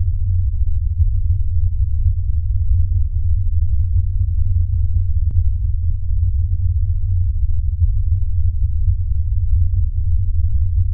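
Deep, steady low drone from a horror film's soundtrack, with a faint click about five seconds in.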